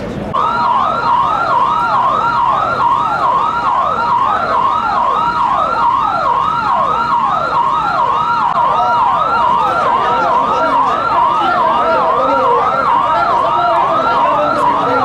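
Electronic emergency siren in a fast yelp, about two and a half rising-and-falling sweeps a second. It starts about half a second in and sounds loud and steady.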